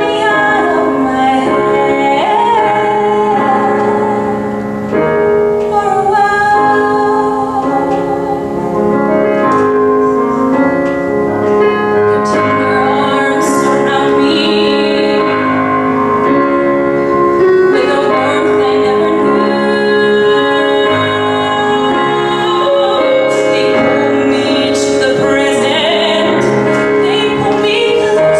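A woman singing a musical-theatre song into a microphone with piano accompaniment, her held notes wavering with vibrato.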